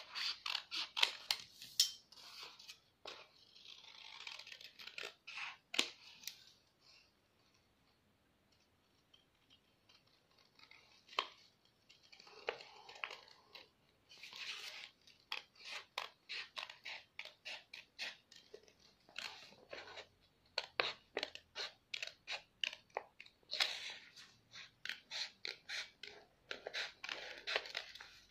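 Scissors cutting through doubled card-sheet paper along a drawn pattern: runs of quick snips with paper rustling between them, and a quiet pause of a few seconds about a quarter of the way in.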